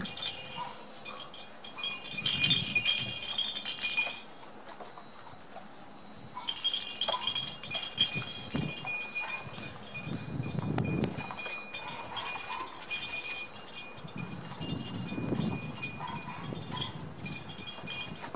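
Metallic chime-like tinkling in two spells, the first lasting about four seconds and the second starting about six and a half seconds in, with fainter tinkling after. Among it come a few short, low cries from the one-month-old Border Collie puppies.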